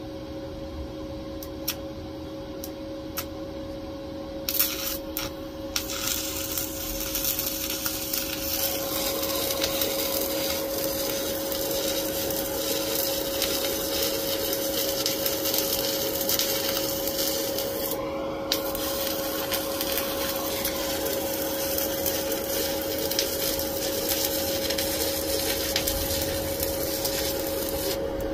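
Stick-welding arc from a cheap 110-volt welder: a few short crackles as the 7018 rod is struck, then a continuous arc crackle from about four seconds in, briefly broken once near the middle, over the welder's steady whine. The welder is drawing about 40 amps from the outlet, far past its 20-amp breaker, which trips and cuts the arc right at the end.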